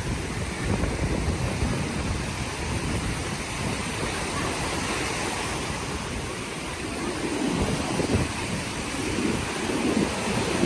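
Rough surf washing onto a sandy beach, with wind buffeting the microphone in low rumbling gusts that grow stronger toward the end.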